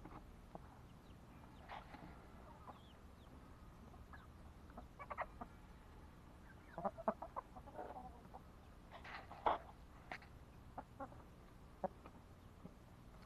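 Chickens clucking in short, scattered calls, getting busier and louder in the second half.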